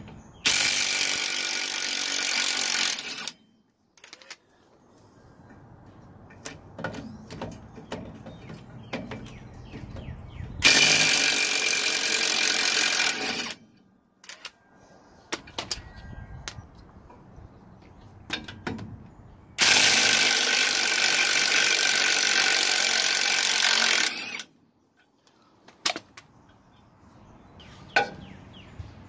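Impact wrench hammering on the 15/16-inch bolts that hold a Ford F-350 front hub, in three bursts of a few seconds each as the bolts are broken loose and spun out. Quieter clicks and knocks of the socket and tool being handled between the bursts.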